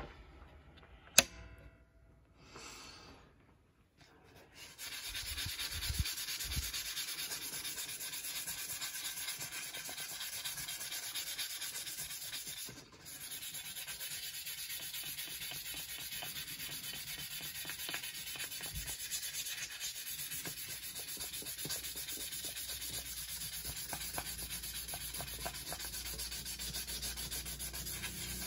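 Sandpaper rubbed by hand back and forth over the rusty steel face of a small anvil, clearing off the rust: a steady scratchy rasp that starts a few seconds in and breaks off briefly near the middle. One sharp knock about a second in.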